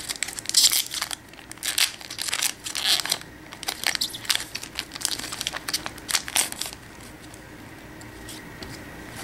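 Foil wrapper of a Yu-Gi-Oh booster pack crinkling as it is handled, a run of sharp crackles that dies down about seven seconds in.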